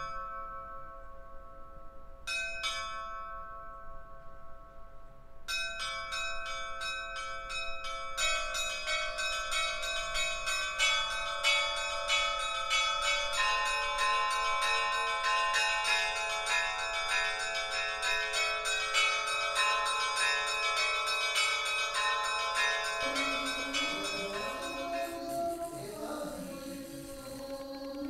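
Church bells ringing: two single strokes a couple of seconds apart, then several bells chiming in a rapid, dense peal from about five seconds in. Near the end the bells fade and voices begin a sung liturgical chant.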